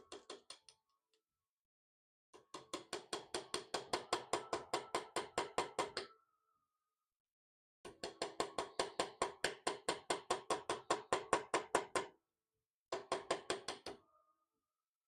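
Rapid, even hammer blows on metal, about seven a second, in three runs separated by short pauses. A faint metallic ring hangs on briefly after the runs stop.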